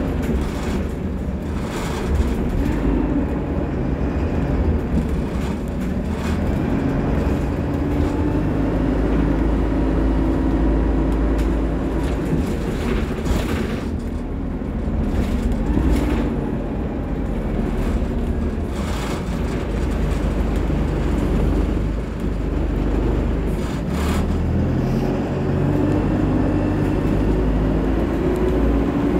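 Cabin sound of an Alexander Dennis Dart single-deck bus on the move: a steady engine drone and road rumble, with occasional knocks from the body. The engine note rises near the end as the bus picks up speed.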